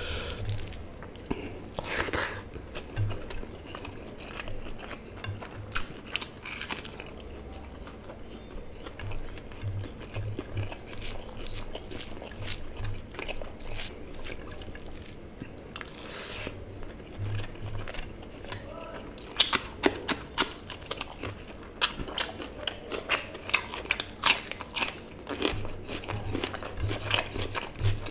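Close-miked eating by hand: fingers squishing rice and mutton curry together on a plate, mixed with chewing and lip smacks. The wet clicks come faster and louder in the last third.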